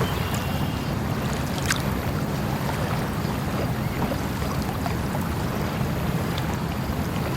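Steady rush of flowing water, with a few small clicks and splashes scattered through it.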